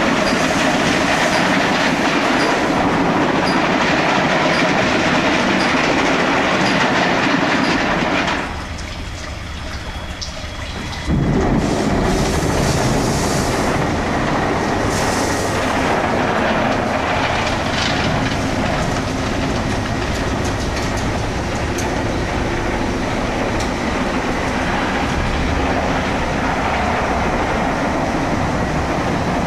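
Automatic car wash machinery running: rotating brushes scrubbing a car under water spray, a loud steady rumble and swish. About a third of the way in it drops quieter for a couple of seconds, then comes back at full strength all at once.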